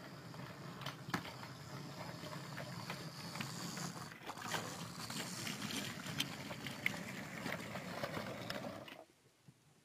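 OO gauge model train running past on the layout, its motor humming steadily while the wheels click and rattle over the track. It stops sharply about nine seconds in.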